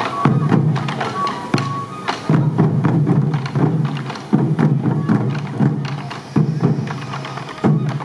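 Sansa daiko, hip-slung taiko drums played by a dancing troupe, beaten in a steady rhythm of low drum hits with sharp stick clicks. A high held melody sounds over the drums for the first two seconds.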